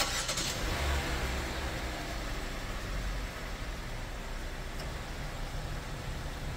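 A 2023 Hyundai Elantra's engine starting with a brief burst of noise, then idling steadily with a low rumble.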